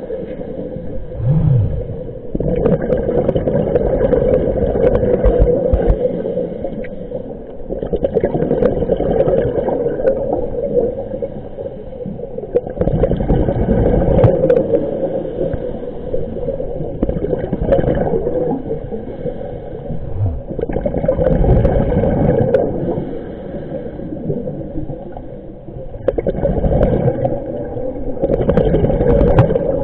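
Muffled underwater noise picked up by a submerged camera in lake water: water moving and gurgling around the housing over a steady hum, swelling and fading every few seconds. A short low tone rises and falls about a second and a half in.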